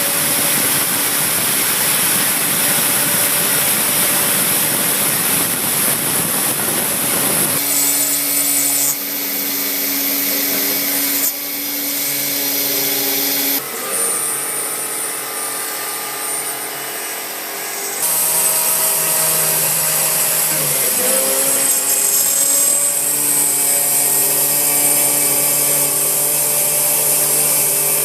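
CNC milling machine cutting aluminium: spindle and end mill running under load. For the first seven seconds or so it is a loud rushing noise. It then settles into a steady pitched whine of several tones, which changes pitch a few times as the cut changes and is a little quieter in the middle.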